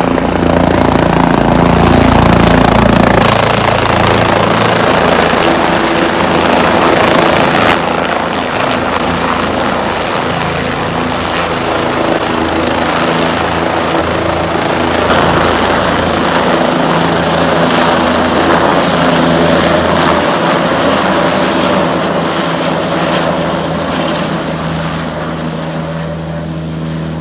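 Helicopter's turbine engine and rotor running steadily, loud, close and continuous. The sound shifts slightly at a couple of shot cuts and fades a little near the end.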